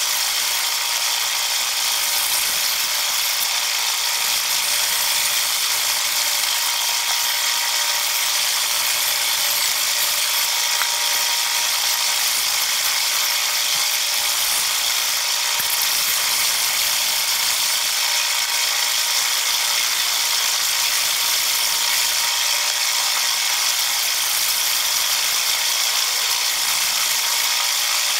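Band saw ripping lengthwise through a solid-wood beam: a steady, mostly high-pitched cutting noise that runs without a break.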